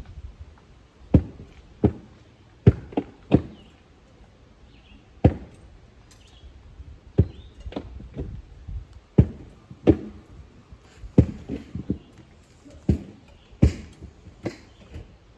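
A series of irregular knocks and thuds, about a dozen, spaced from half a second to two seconds apart, with faint bird chirps behind them.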